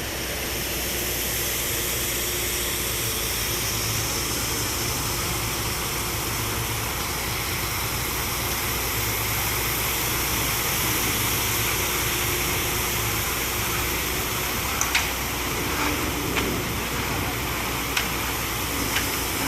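Heavy engine of the concrete-pouring equipment running steadily under a constant rushing hiss, with a few short sharp knocks late on.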